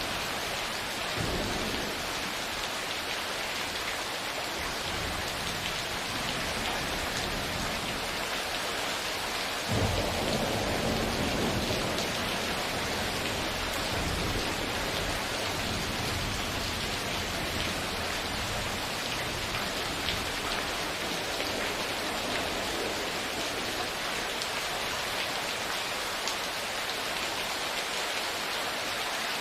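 Steady rain falling with thunder. A low rumble comes about a second in, and a louder thunderclap about ten seconds in rolls on for several seconds.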